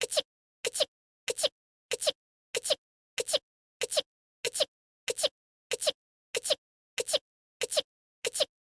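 The same short anime girl's sneeze, voiced by a voice actress, looped back to back about one and a half times a second. Each sneeze is a quick two-part burst with dead silence between repeats.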